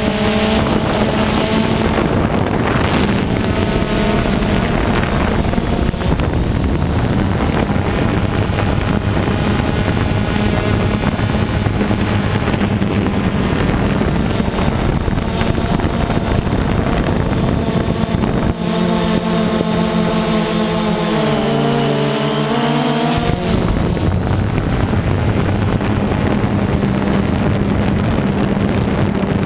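Multirotor drone's propellers whirring steadily with wind noise on the microphone; the motor pitch shifts in steps for a few seconds past the middle as the drone manoeuvres.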